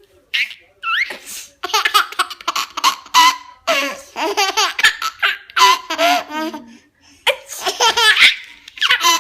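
A baby laughs in five or six loud bouts, with short pauses for breath between them.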